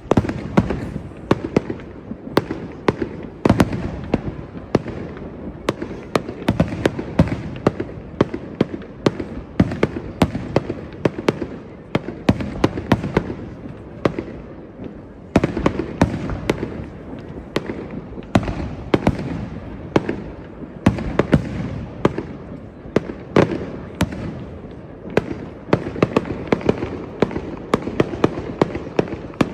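Fireworks display going off continuously: many sharp bangs and crackles, several a second, over a rumble of overlapping reports and their echoes.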